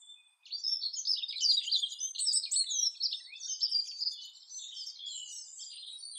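Small songbirds singing and chirping, a busy run of quick, high twittering notes that begins about half a second in.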